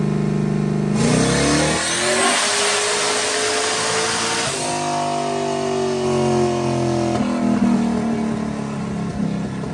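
Turbocharged race car engine making a full-throttle pull on a chassis dyno: a steady note, then about a second in it revs up hard with a climbing pitch and a loud rush, and past the middle the throttle comes off and the revs fall away.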